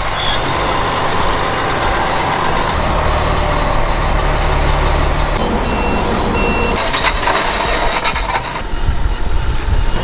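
A truck running steadily, with a continuous low rumble and road noise, and two short high beeps about six seconds in.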